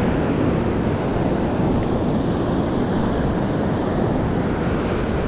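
Waves breaking on a beach mixed with wind blowing across the microphone: a steady noise with no distinct events.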